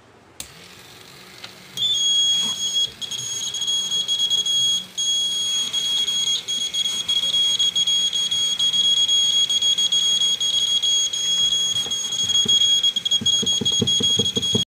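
Piezo buzzer of a homemade seismograph sounding one steady, high-pitched alarm tone, set off as its vibration sensor detects the board being shaken. A click comes just before it, and a quick run of knocks near the end. The tone cuts off suddenly.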